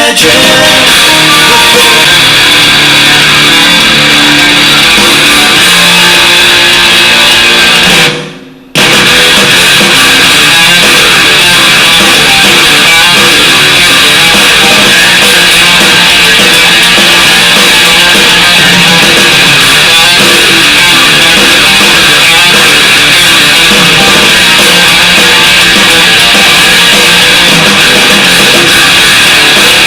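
Rock music with electric guitar and drums played loud through a Luxa2 Groovy Bluetooth portable speaker, which the reviewer says gets rather distorted when turned up loud. The music drops out briefly about eight seconds in, then comes straight back.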